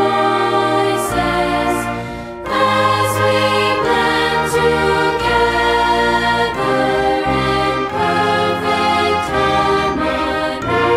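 A holiday song with choir-style singing over instrumental accompaniment. It holds sustained notes, with a brief break about two seconds in.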